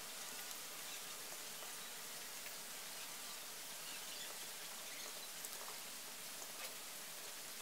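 Faint rustling and small scattered ticks of paracord and thin micro cord being handled and pulled through a woven watch band, over a steady background hiss.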